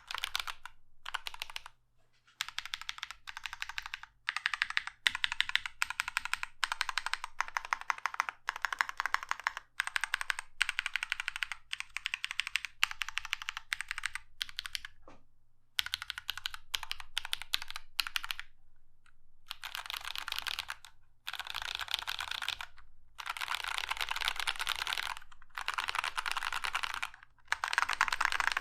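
Fast typing on a 40% mechanical keyboard with lubed Drop Holy Panda tactile switches, PBT keycaps and a foam-dampened acrylic plate and case: dense runs of keystroke clacks broken by short pauses.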